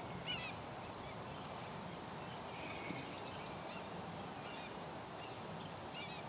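Outdoor ambience: a steady high-pitched insect drone, with short bird chirps scattered through it every second or so.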